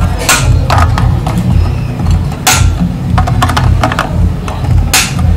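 Side cutters snipping over-long wire ends on an amplifier circuit board: three sharp snips about two seconds apart, with lighter clicks of the tool and board between, over a steady low hum.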